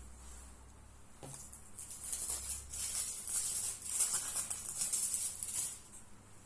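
A soft knock, then about four seconds of irregular crinkling and rustling, like paper, foil or a wrapper being handled, which stops abruptly near the end.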